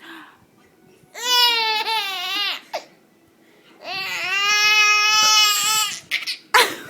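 Infant making two long, high-pitched vocal squeals, the second one longer.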